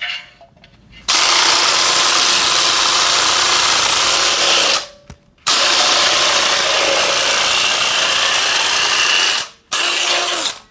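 DeWalt DWASHRIR shear attachment driven by a DeWalt cordless drill, cutting through a galvanized steel channel. It makes a loud, steady shearing run of about four seconds, stops briefly, runs for about four seconds more, then gives a short burst near the end. It cuts through without trouble.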